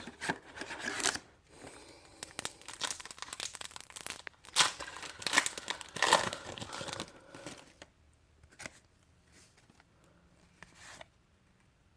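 A trading card pack wrapper being torn open and crinkled: a run of crackly tearing and rustling for about seven seconds, then only a few faint handling sounds.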